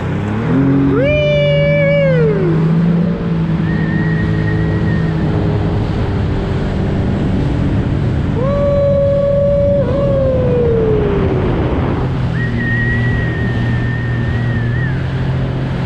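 Jet ski engine running as the ski moves through shallow water, revving up, holding and dropping back twice, with a high whine coming and going.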